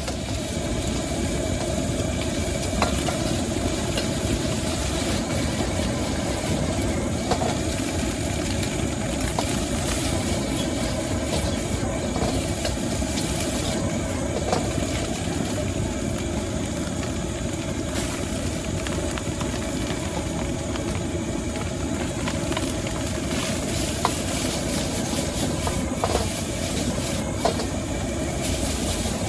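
Stir-frying in a wok over a gas burner running at full blast: a steady heavy burner noise with sizzling, and the metal spatula striking the wok now and then.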